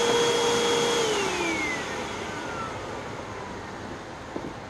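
Hoover WindTunnel 2 Whole House Elite upright vacuum running with a steady whine, then switched off about a second in, its motor winding down with a falling pitch and fading away. It is drawing hardly any air through its hose, which the owner puts down to a clog or clogs.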